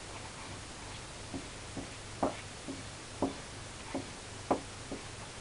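A table knife tapping and scraping on damp newspaper as wet tomato seeds are pushed off it: about eight short, irregular taps roughly half a second apart, starting about a second in.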